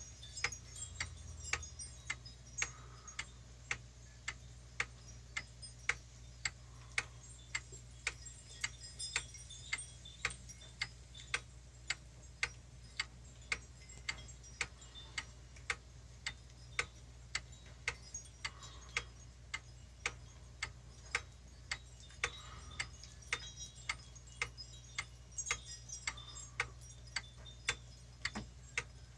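Pendulum wall clock ticking steadily, its escapement giving evenly spaced sharp ticks, about one and a half a second.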